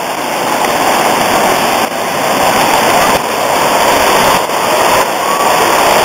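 Waterfall and the stream below it pouring over rocks: a loud, steady rush of falling water.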